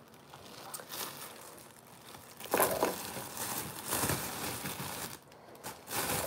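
Thin plastic produce bag crinkling and rustling as it is handled, in uneven bursts that grow louder about two and a half seconds in.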